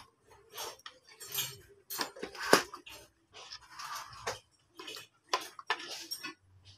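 A spoon clinking and scraping against a plate while eating: a run of short, irregular clicks, the loudest about two and a half seconds in.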